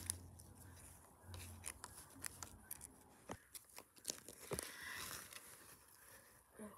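Faint scattered clicks and scrapes of small plastic toy figurines being handled and set down on brick.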